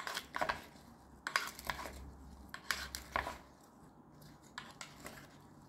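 Two wooden spoons tossing cauliflower florets and carrot slices in a bowl: irregular clicks and scrapes of wood against the bowl as the vegetables shift.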